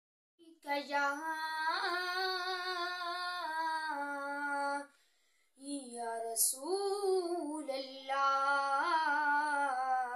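A boy singing a naat (Islamic devotional praise song) unaccompanied, in long held, wavering notes. Two phrases with a short pause for breath about five seconds in.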